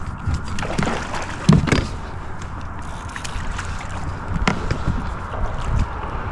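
Water slapping against a plastic fishing kayak's hull, with scattered knocks and clicks from the boat and gear, the loudest about one and a half seconds in, over a low wind rumble on the microphone.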